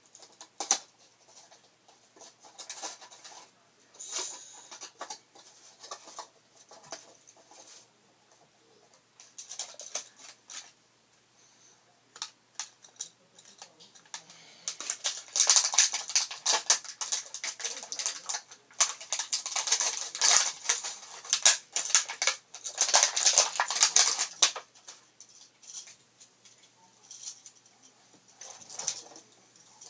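Small plastic toy bottles and their packaging being handled: irregular clicking, rattling and rustling in bursts, sparse at first and then busy and loudest for about ten seconds midway.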